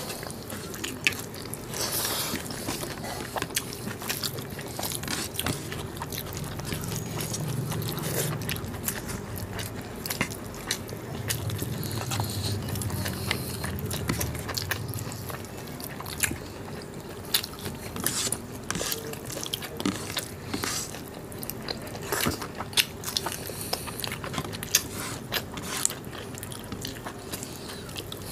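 Close-miked chewing and wet mouth sounds of people eating rice and mutton curry by hand: a steady run of small irregular clicks and smacks.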